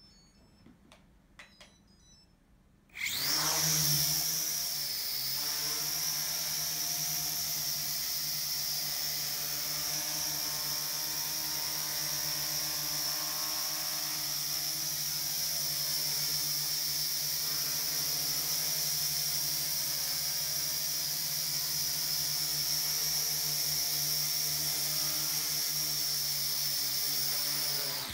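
Sky Viper v2400HD toy quadcopter's four motors and propellers spinning up about three seconds in after a few faint clicks, then running with a steady high whine over a low buzz while it hovers, and cutting off near the end.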